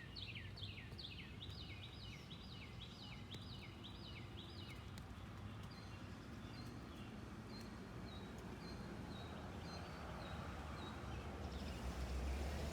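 A bird calling: a rapid series of short, high chirps that each sweep downward, about three a second, for about five seconds, then slower single high notes until near the end. A steady low rumble of outdoor noise underlies it and grows louder near the end.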